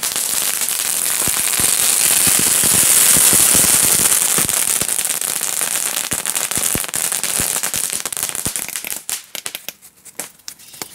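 A heap of small ground fireworks burning together: a loud hissing spray of sparks with dense crackling pops, which thins out after about eight seconds into scattered separate cracks.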